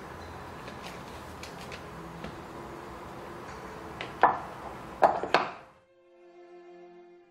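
A spoon scraping and knocking inside a plastic grinder cup of ground black sesame: faint clicks, then three sharp knocks in quick succession. Soft background music follows near the end.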